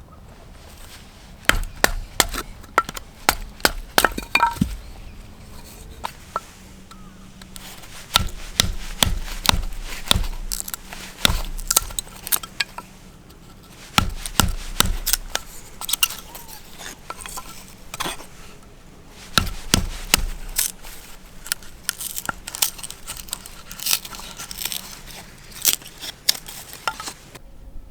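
Chopping: a blade striking wood over and over, sharp knocks coming in irregular runs with short pauses between them.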